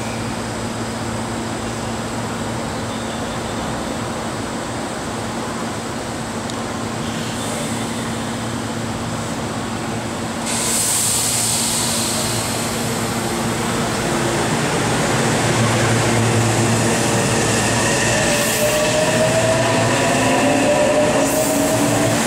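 Meitetsu 3300-series electric train standing at the platform with a steady electrical hum. A sudden hiss starts about ten seconds in. Near the end the train starts to pull away, with several rising motor whines as it accelerates.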